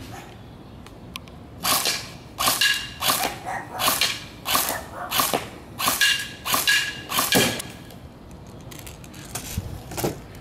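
Airsoft gun firing a string of about ten single shots, a little more than one a second, at a pressurised plastic water bottle in front of a BB trap. Each shot is a sharp crack, some with a brief ringing tone, and a few faint ticks follow near the end.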